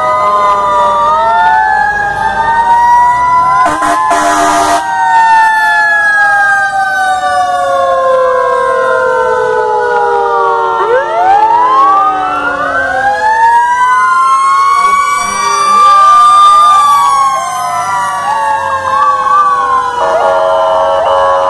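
Several fire truck sirens sounding at once as the trucks pass one after another, their wails overlapping and rising and falling in pitch, some winding slowly down over several seconds. A short burst of hiss comes about four seconds in, and a steady multi-note tone joins near the end.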